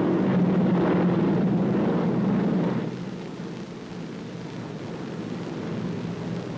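Steady drone of a formation of piston-engine bombers flying over. It is loud for about the first three seconds, then quieter as the formation is heard from farther off.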